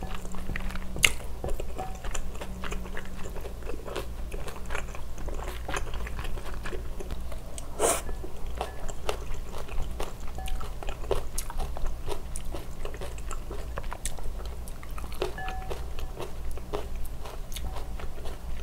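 Close-miked chewing of a mouthful of food: a dense run of small wet clicks and smacks, with one sharper click about eight seconds in.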